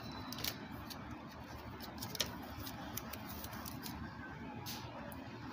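Restaurant room tone: a steady low hum with a few light clicks of tableware and dishes, the sharpest about two seconds in.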